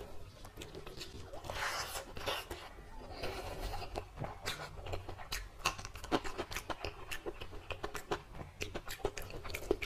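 Fingers tearing fried brinjal (eggplant) slices and working them into rice on a plate: a run of small crackles, clicks and soft squishes, busiest about two seconds in.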